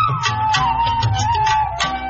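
Instrumental interlude of a Malayalam film song: a single melody line that slides between notes, over a steady light percussion beat.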